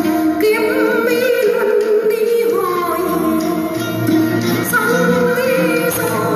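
Vietnamese chèo music: a woman singing a melody of long, wavering held notes that slide between pitches, over instrumental accompaniment.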